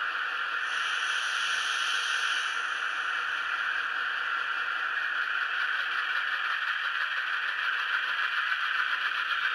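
N gauge model train running on the layout: a steady rattling hiss of small wheels on track.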